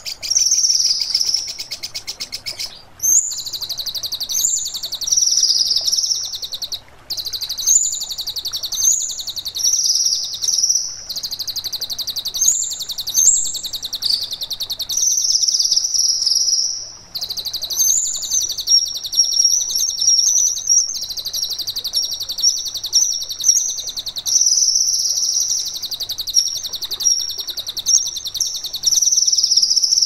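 Kinoi songbird singing loudly: a continuous high, very fast trill with sharp, short whistled notes laid over it, broken by brief pauses every few seconds.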